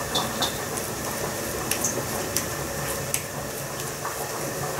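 Soft squishing of raw minced meat being rolled into a ball between the palms, with a few faint light clicks over a steady background hiss.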